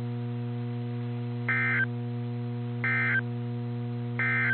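Three short, evenly spaced bursts of warbling EAS/SAME digital data tones, about a second apart: the end-of-message code that closes a NOAA Weather Radio warning. A steady hum runs underneath.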